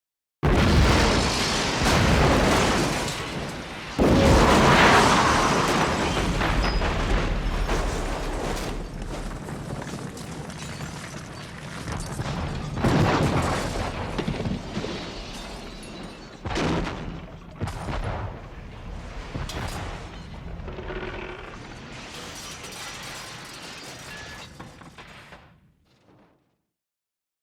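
Sound-effect explosion: a sudden blast, a second louder blast about four seconds in, then a long rumbling tail with scattered crashes and debris impacts that fades out over about twenty seconds.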